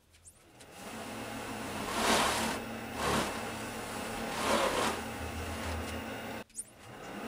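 Wood lathe motor starting up and running with a steady hum, spinning a wood-and-resin turning. Three swells of hissing rub come about two, three and four and a half seconds in as a cloth is pressed against the spinning piece. The sound cuts out briefly near the end.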